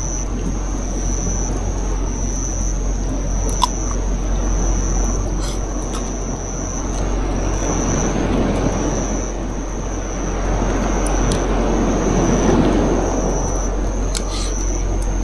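Steady rushing outdoor noise with a low rumble, swelling twice in the second half, with a high note pulsing on and off about once a second over it.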